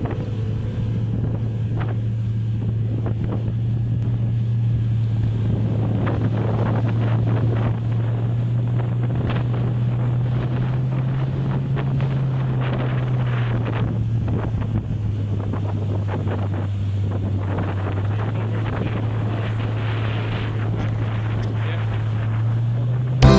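Outboard motor of a RIB running at a steady speed, its engine note rising slightly about halfway through and then dropping back, with wind buffeting the microphone and water rushing past the hull.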